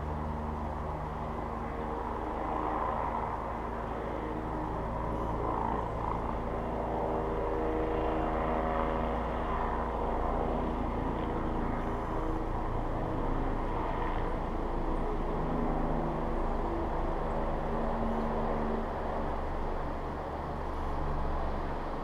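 Road traffic: a steady low engine rumble with a pitched hum that shifts now and then as vehicles run.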